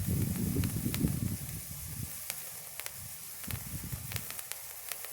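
A red Patriot stick, a sparkler-type firework, burning with a steady hiss and scattered sharp crackles. A louder low rumble runs through the first couple of seconds.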